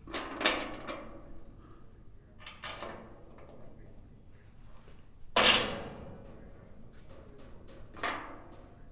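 Four separate bangs, each with a short fading tail. The loudest comes about halfway through.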